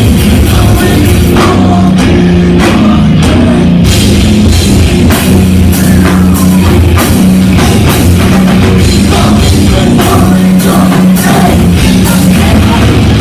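Live heavy rock band playing loud: distorted electric guitar, bass and a pounding drum kit, recorded very close to full level.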